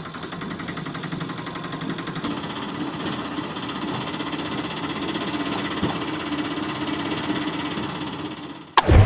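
A small electric motor buzzing steadily with a rapid rattling pulse, cut off near the end by a sudden loud knock.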